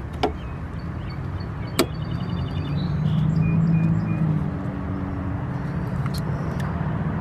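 Two sharp clicks as the pieces of an HID headlight bulb are handled and fitted, over a steady low rumble of traffic that swells as a vehicle passes a few seconds in.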